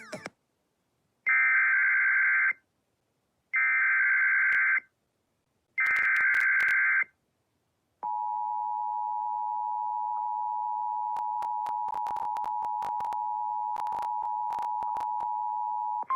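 Emergency Alert System tones: three short screeching SAME digital header bursts, about a second apart, followed about 8 seconds in by the steady two-tone EAS attention signal, with sharp clicks and crackles over it.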